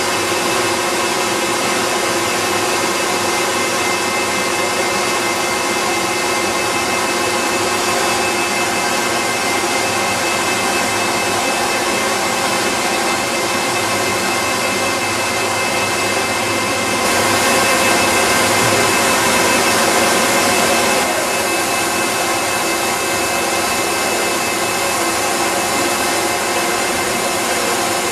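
Steady noise of machinery on a confectionery production line, with motors and mixers running and several steady hum tones over a broad hiss. The hiss grows brighter and a little louder for about four seconds past the middle.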